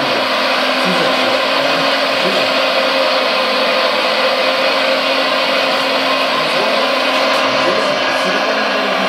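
Radio-controlled Liebherr R956 excavator (Premacon, 1:14.5 scale) working: a steady, even whir of its motors and hydraulics, mixed with the diesel engine sound from its onboard sound module, as the arm and bucket move.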